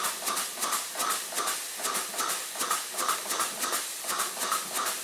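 Small homemade live-steam engine running at its first start-up, chuffing in an even rhythm of a few beats a second as its flywheel drives a flat belt to a Meccano pulley.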